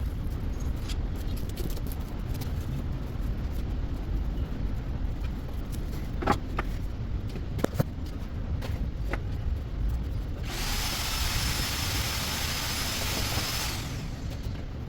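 Work on a headlight: a couple of sharp clicks, then a power tool runs for about three seconds with a loud hiss and a steady high whine. A low rumble continues underneath throughout.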